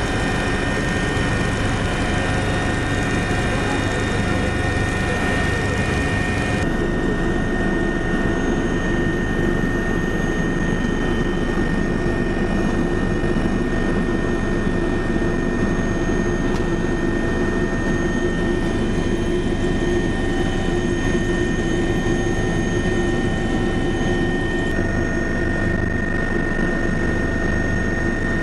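Helicopter engine and rotor noise heard from inside the cabin: a loud, steady drone with high, steady whining tones. The mix of tones shifts abruptly about seven seconds in and again near the end.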